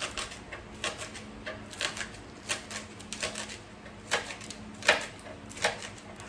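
Knife chopping spring onions on a cutting board: irregular sharp taps, about one or two a second, the loudest a little before the end.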